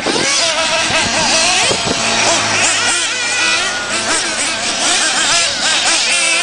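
Several radio-controlled off-road buggies running on a dirt track, their small high-revving engines rising and falling in pitch as they speed up and brake. A steady low hum joins about two seconds in.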